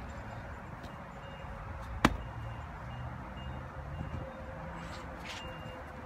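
A single sharp wooden knock on a firewood round about two seconds in, over a faint steady low hum.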